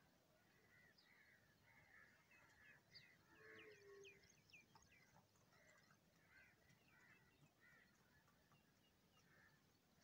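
Faint mix of bird calls: house crows cawing, with quick high chirps of smaller birds about three to five seconds in.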